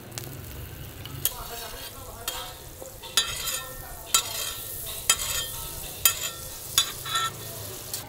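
Roti canai and eggs frying in oil on a flat griddle with a steady sizzle. A metal spatula clanks against the griddle about once a second, with a short metallic ring after each strike.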